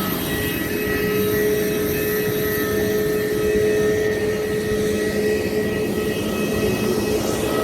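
Steady cabin noise of an Airbus A320-family airliner with its jet engines running at low power after landing: an even rumble with a few constant whining tones held throughout.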